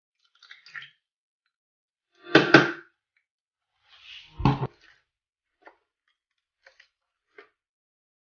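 Clear glue slime being squished and pressed by hand: a few separate wet, sticky squishes, two of them loud, then a few small clicks.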